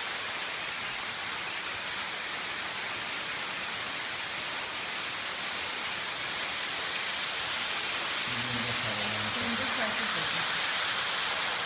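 Steady rush of water from a stream running through a limestone cave, getting slightly louder near the end.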